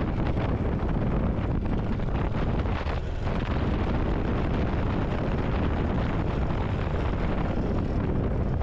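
Wind rushing over a motorcycle-mounted microphone, with the motorcycle's engine running steadily underneath while riding.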